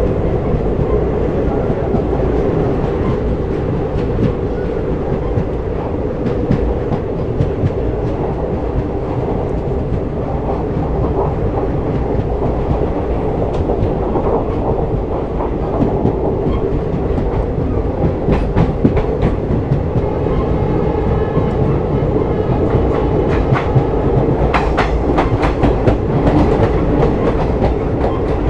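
Train running along the track, heard from on board: a steady rumble with wheels clicking over rail joints, the clicks growing busier in the second half.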